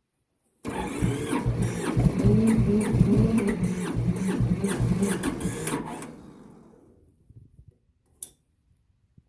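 Starter cranking the cold Massey Ferguson 205-4 diesel tractor engine with a fast rough rhythm for about five seconds, then cutting off and dying away. A single sharp click comes near the end.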